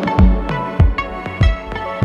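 Electronic background music with a steady beat: deep drum hits that drop in pitch about every half second under sustained synth notes.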